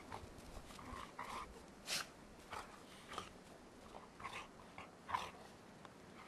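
Dogs play-fighting in deep snow: a string of short, scattered huffs and crunches at irregular intervals.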